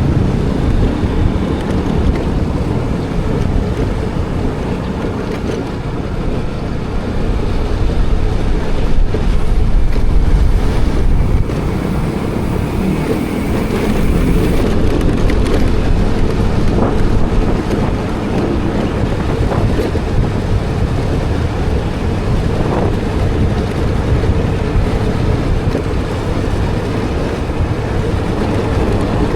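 Wind buffeting the microphone over a steady low rumble, with a few faint clicks in the second half.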